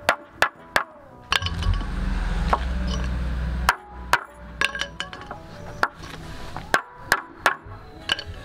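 Hammer blows on a wooden batten laid over a Volvo Penta saildrive part: a run of sharp knocks, driving a press-fit piece back into its housing. A steady low rumble sounds from about one and a half seconds in until nearly four seconds, then stops abruptly.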